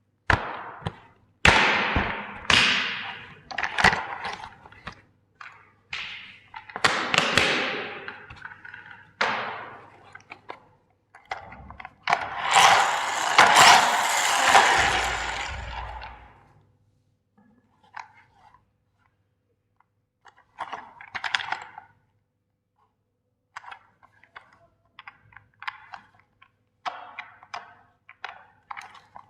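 Hammer blows smashing toy vehicles: a run of sharp cracks, each trailing off briefly, then a longer stretch of crunching and breaking about twelve seconds in. The second half holds lighter scattered clicks and clatter.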